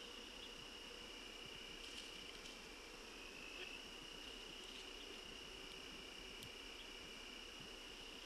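Faint, steady chorus of late-summer evening insects such as crickets, heard as an unbroken high-pitched drone, with a few faint clicks.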